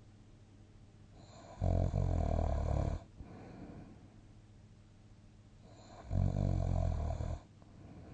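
A sleeping person snoring: two loud snores, each lasting more than a second, start about a second and a half in and again about six seconds in. Quieter breathing runs between them.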